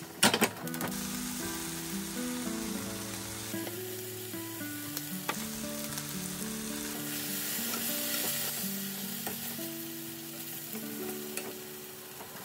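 Ham, green pepper and carrot sizzling as they are stir-fried in a frying pan, with a loud clatter about half a second in as the pan is set down on the gas burner's grate. The sizzle grows louder a few seconds later as a little soy sauce goes into the pan.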